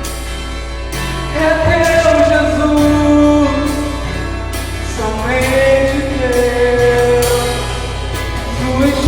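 Live worship music: a voice singing long, held phrases over acoustic guitar, with light cymbal strokes from a drum kit.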